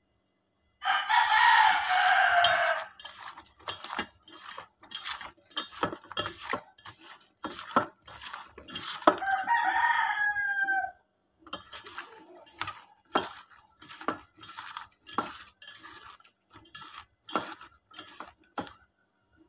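A rooster crows twice, loudest about a second in and again near the middle. Under it, cut eggplant pieces clatter and knock against a stainless steel bowl as they are tossed by hand.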